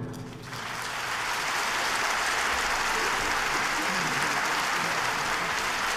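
Concert audience applauding, the clapping starting about half a second in and quickly building to a steady ovation as the orchestra's last chord dies away.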